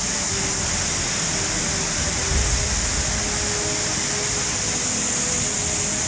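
Rushing floodwater, a steady, even noisy rush with no breaks, under faint background music.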